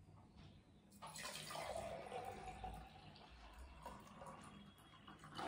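Water poured from a plastic cup into a glass jar. The faint pour starts about a second in and runs for about four seconds, its pitch rising slowly as the jar fills.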